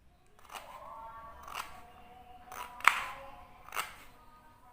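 Pieces of chopped ginger dropped into a blender jar: four sharp knocks about a second apart, some with a short ringing from the jar.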